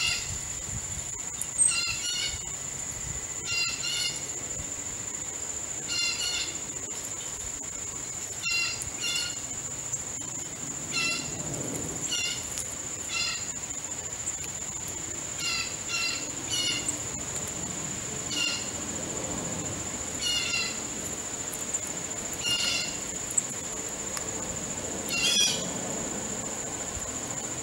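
Crows calling over and over, a short call about every one to two seconds, over a steady high-pitched insect trill.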